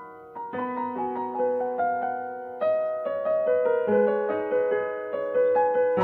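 Background piano music: single notes and soft chords struck a few times a second and left to ring.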